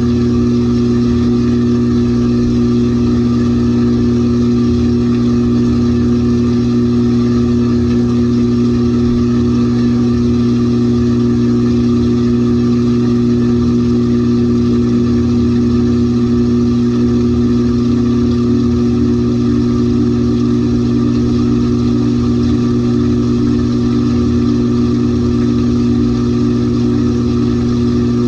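LG 18 kg top-load washing machine running with a steady, unbroken motor hum.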